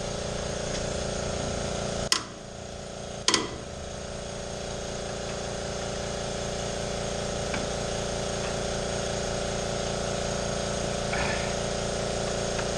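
Air compressor running with a steady hum. Two sharp metallic clinks of tools on metal about two seconds in and again a second later.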